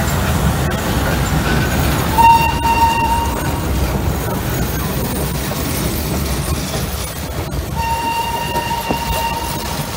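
Steam-hauled train of vintage Centoporte coaches behind locomotive 640.003 rolling past at low speed, a steady rumble of wheels on the rails. A single-note whistle sounds twice, briefly about two seconds in and longer near the end.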